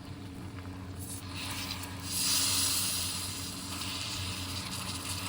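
Ginger and sugar syrup sizzling in a pan on the stove, a steady hiss that swells sharply about two seconds in and then holds.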